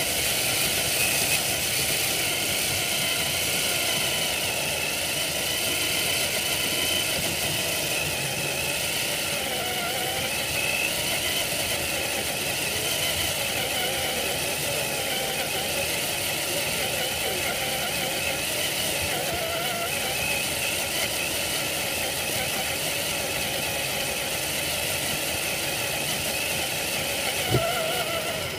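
Traxxas TRX-4 RC crawler's electric motor and gearbox whining as the truck drives, the pitch wavering up and down with the throttle. A single sharp knock near the end.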